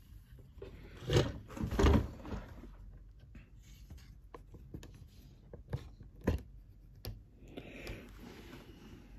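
Handling noise from a phone camera being picked up and turned round: two knocks about a second in, then scattered sharp clicks, and fabric brushing over the microphone near the end.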